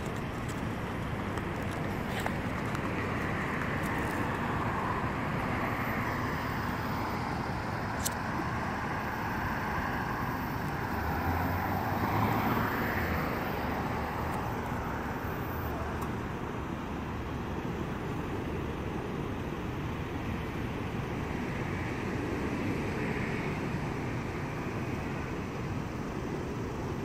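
Steady city street traffic noise, with motor vehicles running, getting a little louder about twelve seconds in.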